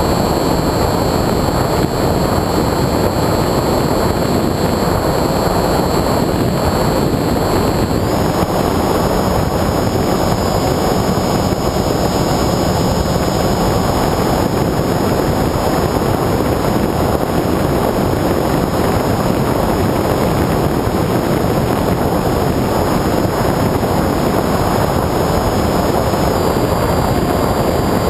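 Onboard sound of a Bixler 2 RC foam plane in flight: steady wind rush over the GoPro with the thin high whine of its electric pusher motor and propeller, which shifts in pitch about eight seconds in and again near the end.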